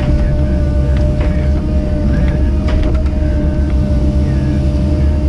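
Caterpillar 307E2 mini excavator heard from inside its cab: the diesel engine runs steadily with a steady whine over it, and a few short knocks come as the arm and bucket work.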